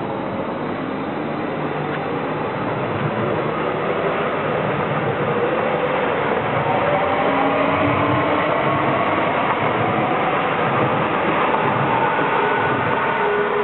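Stadler FLIRT electric multiple unit running past close by: a steady rush of wheels on rail, with a faint whine that slowly rises in pitch from its electric traction as it gathers speed.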